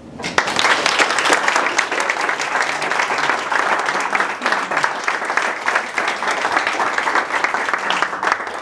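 A small audience applauding: many hands clapping together, starting just after the talk ends and stopping abruptly near the end.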